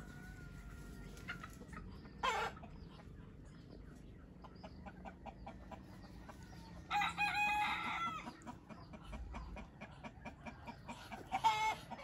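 Domestic rooster crowing, one crow lasting about a second some seven seconds in, with shorter loud calls about two seconds in and again near the end.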